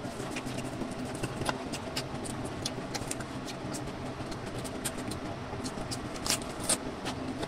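Close-up chewing and mouth sounds of eating, with many short wet clicks and crunches; the loudest crunches come near the end as a bite is taken from a crisp lettuce leaf. A steady low hum runs underneath.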